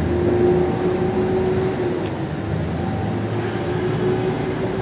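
Steady city street traffic noise with a motor-vehicle engine hum that drifts slightly in pitch.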